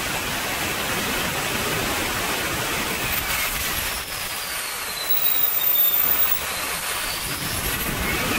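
Wren 54 model jet turbine running under power on a ground engine run: a loud, steady rushing roar with a high whine. The whine slides down in pitch through the middle and climbs back near the end, with a brief louder surge a little past halfway.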